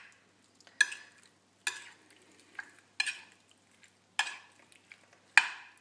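A metal utensil stirring a salad of diced oranges and chopped hard-boiled eggs, clinking against the glazed ceramic serving dish about six times, roughly once a second, each clink fading quickly. The last clink, near the end, is the loudest.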